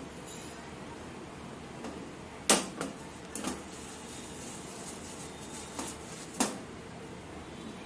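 Silicone spatula stirring thick caramel in a nonstick pan, with a few sharp knocks of the spatula and pan, the loudest about two and a half seconds in.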